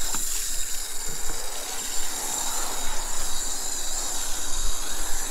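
Garden hose spray nozzle jetting water over and through a gutted broiler chicken carcass: a steady hiss of spray with water splashing off the bird and the table.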